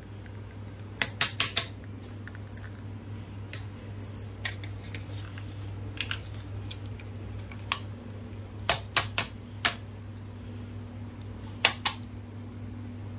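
Short sharp clicks and taps from plastic curd cups being handled, knocked and scraped over a plastic mixing bowl, coming in small clusters about a second in, around the middle and near the end, over a steady low hum.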